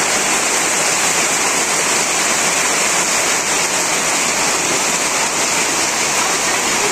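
Heavy rain pouring down steadily on corrugated tin-sheet walls and roofs and into puddles on the ground: an even, unbroken hiss.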